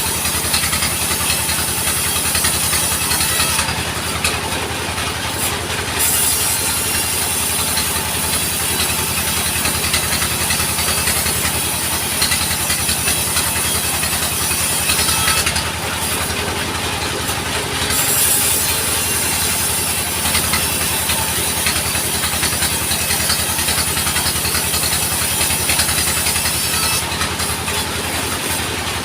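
A sawmill running: its engine hums steadily under the noise of the saw cutting wood. The high hiss of the saw drops away briefly three times.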